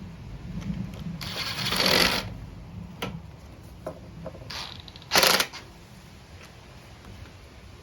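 Hand-tool and small-part handling while refitting a mower carburetor and its bolts: scattered light clicks, a rustling scrape about a second in, and a shorter, louder scrape a little after five seconds.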